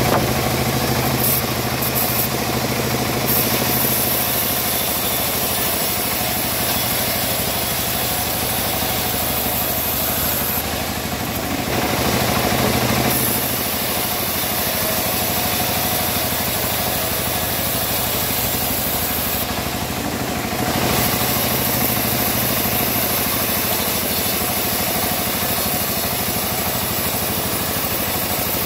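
Homemade bandsaw mill running steadily and ripping a teak board lengthwise: the blade's dense rasping hiss through the wood over the machine's steady hum. The sound shifts briefly twice along the way.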